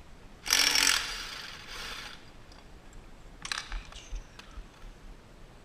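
Two bursts of mechanical ratcheting clatter at the go-kart's torque converter: a loud one lasting about a second and a half, starting about half a second in, then a shorter, quieter one about three and a half seconds in.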